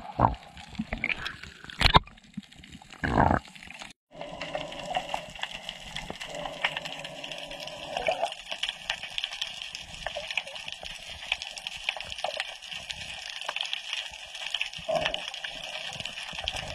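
Sea water splashing and churning at the surface for the first few seconds, then, after a brief cut, a steady underwater hiss full of fine crackling clicks, muffled as heard from a submerged camera.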